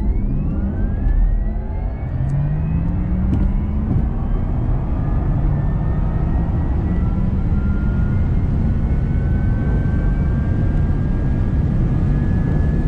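Electric car accelerating hard. Its drive-motor whine climbs steeply in pitch at first, then rises more slowly as speed builds, over loud wind and road noise.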